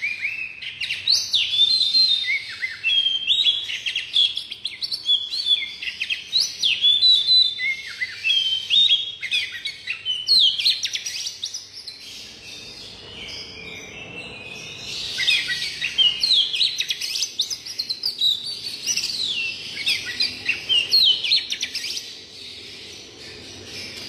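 Oriental magpie-robin (kacer) singing a long, rich run of quick, varied whistled phrases that slide up and down in pitch, with short pauses about halfway through and near the end.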